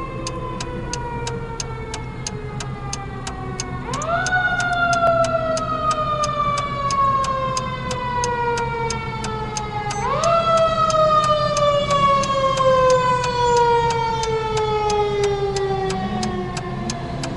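Fire engine siren wailing: it winds up quickly about four seconds in and again about ten seconds in, then sags slowly in pitch each time, like a mechanical siren. Under it, a steady clicking at about three a second.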